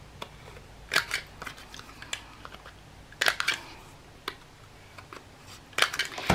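Small corner rounder punch snapping as paper corners are rounded: several sharp clicks in small groups, about a second in, around the middle and near the end.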